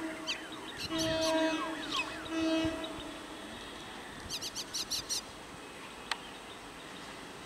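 Electric multiple unit train horn sounding in short blasts over the first three seconds while birds call with quick falling whistles. After that comes a steady noise from the approaching train, with a quick run of bird chirps about four and a half seconds in.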